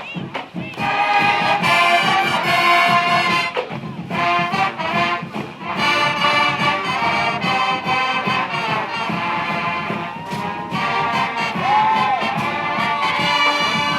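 College marching band's brass section, trumpets and trombones, playing loud held chords over a steady beat.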